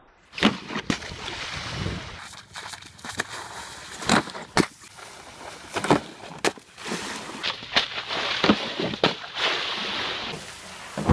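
Skimboards skimming over shallow water: spray and splashing, broken by sharp slaps and knocks as boards hit the water and a wooden rail box, several times.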